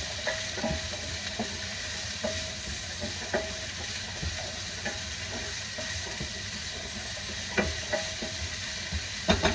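Chopped vegetables sizzling in sesame oil in a frying pan as they are stirred with a silicone slotted spoon, which scrapes and knocks against the pan now and then over a steady hiss.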